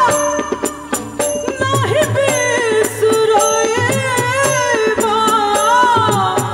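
A woman singing a folk-style song live into a microphone, with long wavering held notes that glide down, over band accompaniment with a steady percussion beat.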